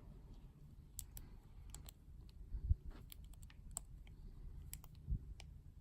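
Faint, irregular metallic clicks and ticks of a lock pick and tension wrench working the pin stack inside the cylinder of a Yale Y220/71 padlock, as pins are set one by one.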